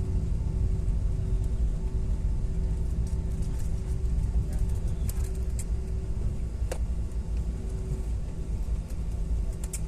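Jet airliner cabin noise during landing: a steady low rumble with a constant hum and a few scattered clicks and rattles, one sharp click near the end.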